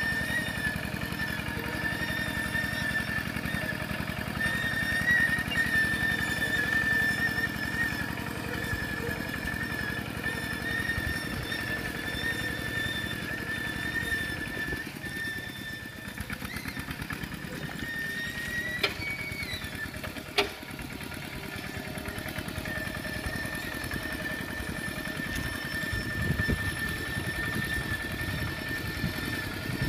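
Kubota single-cylinder diesel engine of a two-wheel walking tractor running steadily under load as it pulls a plough, with a thin, steady high-pitched squeal over the engine that fades for a few seconds past the middle and comes back. A single sharp click sounds about twenty seconds in.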